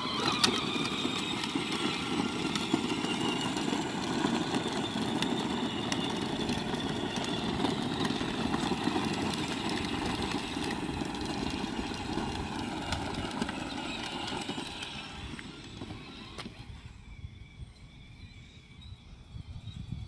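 Battery-powered John Deere ride-on toy tractor's electric motor and gearbox whining steadily as it drives, with its plastic wheels rumbling. It fades after about 15 s as the tractor moves away.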